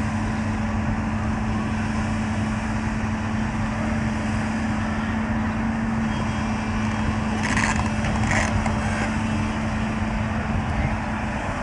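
JCB backhoe loader's diesel engine running steadily, with two short sharp noises from the machine a little past halfway through.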